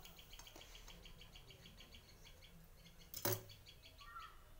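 A small bird chirping rapidly, a steady run of short high chirps about seven a second. There is a single sharp knock about three seconds in.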